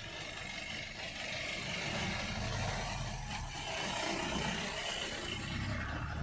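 Car engine and road noise heard from inside the cabin in slow traffic, with other vehicles moving close by.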